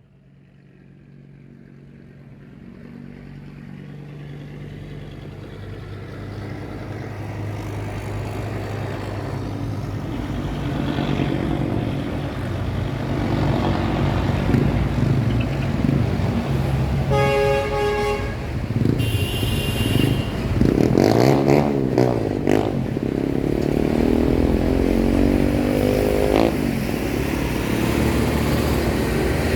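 Busy street traffic: engines of cars, trucks and motorcycles passing, fading in over the first several seconds. A vehicle horn honks about two-thirds of the way in, followed by a short high-pitched sound, and then engines rise in pitch as vehicles accelerate.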